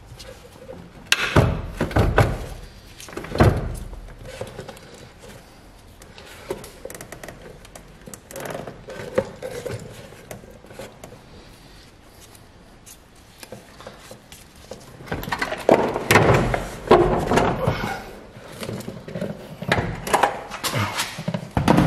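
A car battery being worked loose and lifted out of its tray: two heavy thuds in the first few seconds, soft handling sounds, then a longer run of knocking and scraping from about two-thirds of the way through.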